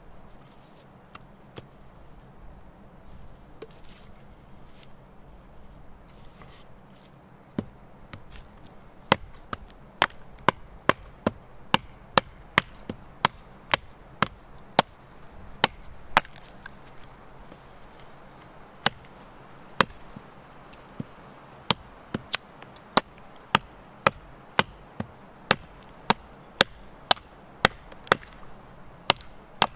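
Wood being chopped with a blade: a run of sharp, regular chops about two a second, starting around eight seconds in, breaking off for a couple of seconds about halfway, then going on steadily again.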